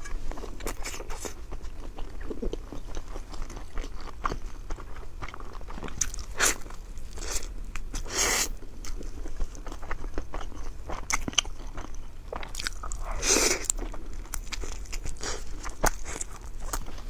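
Close-miked eating: a person chewing and biting food, with many small wet clicks and a few louder crunches.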